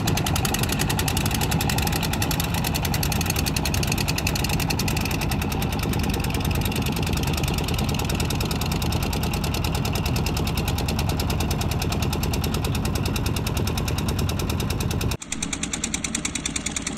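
Diesel engine of a river ferry running steadily, a fast even beat with a heavy low end. About two seconds before the end the sound cuts and carries on thinner, with an even pulsing.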